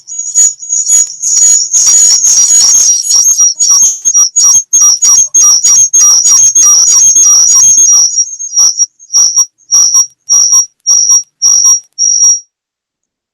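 Loud, high-pitched electronic whistling tone breaking up in the call audio. It is choppy at first, then settles into short even beeps about twice a second and cuts off abruptly near the end. This is an audio fault on the online meeting's line.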